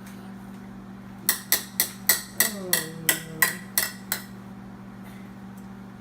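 A microwave oven running with a steady low hum, and a quick run of about ten sharp knocks, three or four a second, lasting about three seconds.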